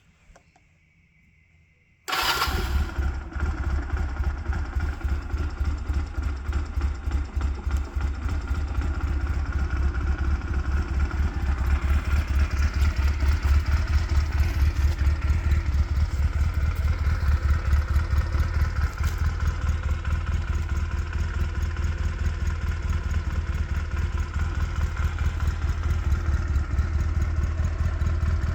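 1997 Honda Rebel CA125's small air-cooled parallel-twin four-stroke engine on its original stock exhaust starts about two seconds in, then idles steadily with an even pulse.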